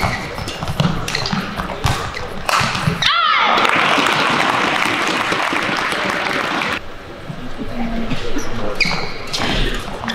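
Badminton rally: racket hits on the shuttlecock and court shoes squeaking. The point ends and the arena crowd applauds and cheers for about three seconds, then a new rally starts with more hits and squeaks near the end.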